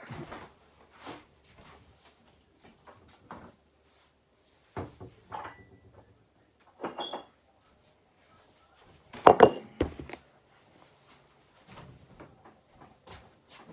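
Scattered knocks, bumps and clatter of things being handled in a kitchen, with quiet gaps between; the loudest clatter comes about nine seconds in.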